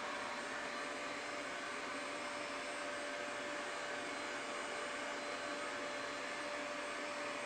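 Home-made CNC router's spindle running steadily, a constant whirring with a steady whine.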